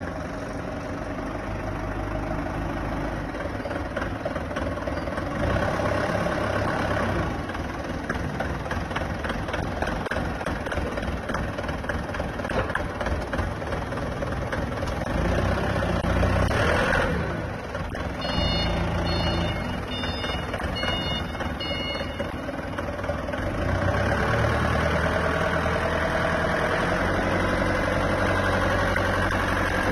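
Engine of a small crawler farm tractor running steadily under load, with a rapid firing beat. A series of short high beeps sounds briefly about two-thirds of the way in.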